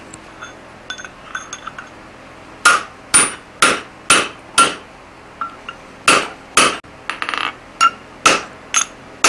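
Hand hammer striking a hot 4140 steel hammer head on the anvil while the eye is punched and forged: a few light metal clinks, then from about three seconds in a run of ringing blows about two a second. After a short pause the blows resume, with a quick flurry of lighter taps.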